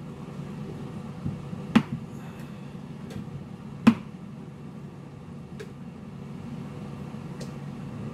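Two sharp knocks about two seconds apart over a steady low hum, with a few fainter clicks between and after.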